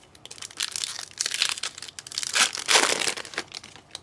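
A trading-card pack wrapper being torn open and crumpled: irregular crinkling and tearing for about three seconds, loudest near the end.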